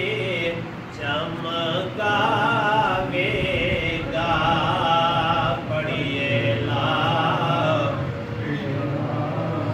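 A man's voice chanting a religious recitation in long, wavering phrases with short pauses between them.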